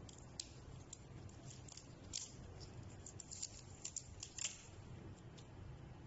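Faint, sharp plastic clicks and ticks from hands handling a scooter's wiring harness and connectors, irregular and bunched in the middle, the loudest a little past the middle.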